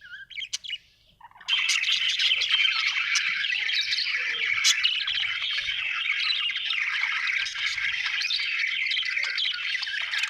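Budgerigars calling: a few short, separate chirps, then from about a second and a half in, continuous dense chattering and chirping.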